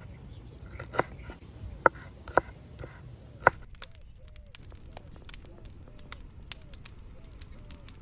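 A chef's knife chopping green onions on a wooden cutting board: four sharp chops in the first half. Then a wood fire crackling with rapid small pops, with faint short animal calls repeating.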